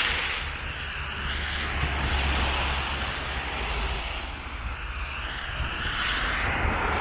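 Road traffic on a wide city avenue: the hiss of passing cars' tyres swelling and fading over a steady low rumble.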